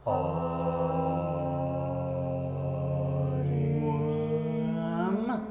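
A held chanted drone of several overlapping vocal tones, starting abruptly. About three and a half seconds in one tone slides in pitch, and near the end the tones bend upward and cut off.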